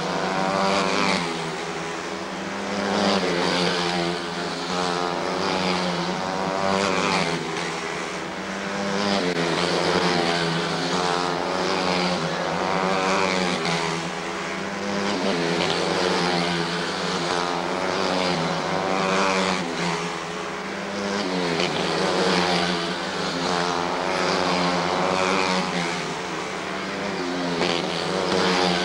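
Several quarter midget race cars' small single-cylinder engines buzzing at high revs, overlapping, with the pitch rising and falling every few seconds as the cars accelerate and back off around the oval.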